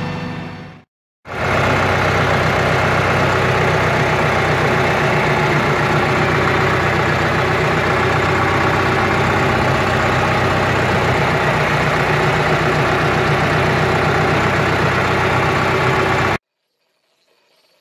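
Tractor engine running steadily at a constant speed, close to the operator's seat. It drops out briefly about a second in and stops abruptly near the end.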